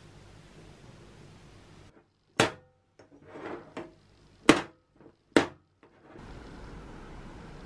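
Three sharp knocks, about two seconds in, four and a half seconds in and five and a half seconds in, with quieter handling and scraping noise between them, as of objects being put down and moved about on a hard surface.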